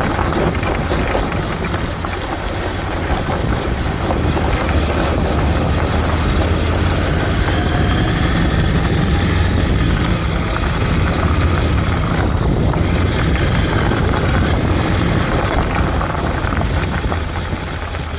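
Motorcycle being ridden, its engine running steadily under a loud rush of wind on the microphone.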